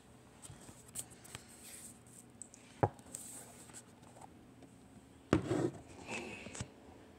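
Handling noise: scattered light taps and rubbing, a sharp knock about three seconds in, and a couple of heavier thumps a little past five seconds.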